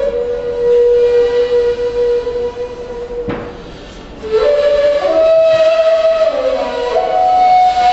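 Ney (Turkish end-blown reed flute) playing a slow melody of long held, breathy notes. One note is held for about three seconds and fades, a single knock comes in the short lull, then the line moves on to higher held notes.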